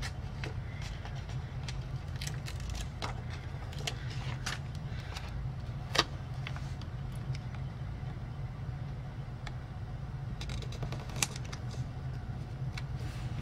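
Light taps, clicks and paper rustles of planner stickers being peeled off their sheet and pressed flat onto the pages of a spiral planner, the sharpest tap about six seconds in, over a steady low hum.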